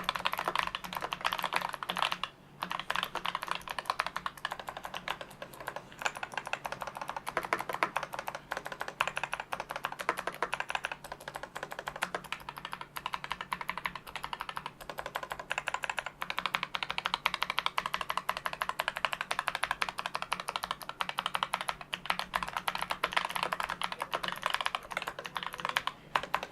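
Fast continuous typing on a full-size Asus ROG Strix Scope II RX keyboard with clicky, tactile ROG RX Blue optical switches, a dense stream of key clicks with a brief pause a few seconds in. The clicks are noisy, as is usual for blue switches, softened somewhat by the keyboard's sound-dampening foam.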